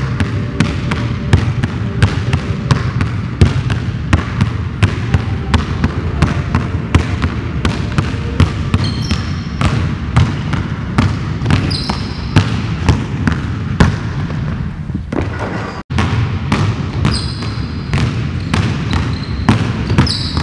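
Two basketballs dribbled hard on a hardwood gym floor, a steady run of bounces several a second, with a few short sneaker squeaks.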